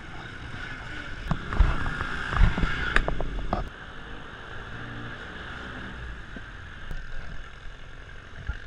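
Muffled street and traffic noise with several knocks and bumps in the first few seconds. About three and a half seconds in, the sound drops to a steadier, quieter hum.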